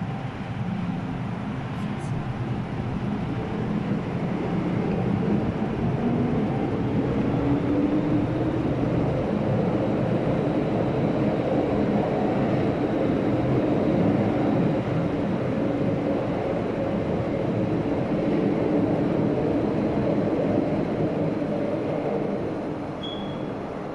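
MTR Tsuen Wan Line M-Train electric multiple unit pulling out of the platform. Its motors and wheels on the rails build up a few seconds in with a faint rising whine, keep going steadily as the cars pass, and fade away near the end as the last car leaves.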